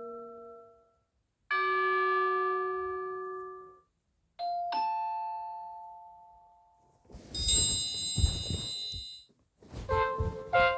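Samsung Galaxy A36 5G alert tones played one after another through the phone's speaker: short bell-like chimes that each strike and fade over two to three seconds. About seven seconds in, a brighter, busier tone starts, with low knocks mixed in near the end.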